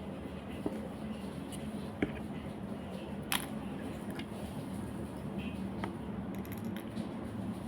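Hands handling slime and picking seashells out of it: a few scattered small clicks and pops, over a steady low hum.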